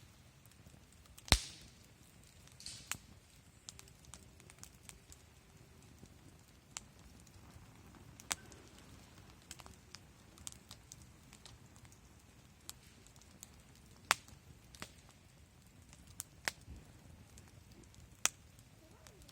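Wood campfire burning with scattered sharp pops and crackles over a faint steady hiss, the loudest pop about a second in.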